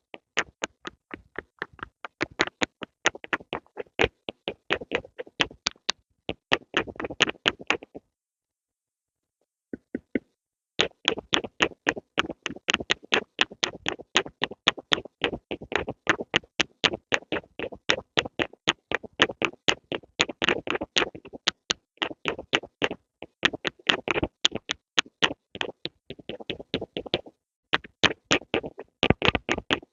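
Pencil tapped and clicked in quick, sharp ticks, several a second, in long runs broken by a silence of about two seconds about a third of the way in.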